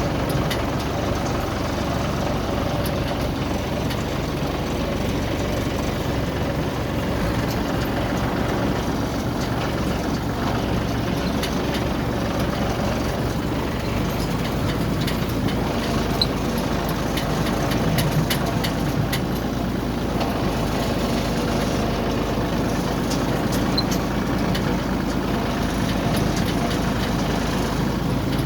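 Yanmar combine harvester running steadily, its engine and machinery making a constant drone, with faint scattered clicks in the middle stretch.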